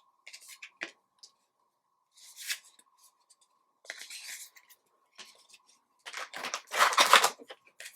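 Trading card packs and cards being handled: scattered crinkles and small clicks, with a longer, louder rustle near the end.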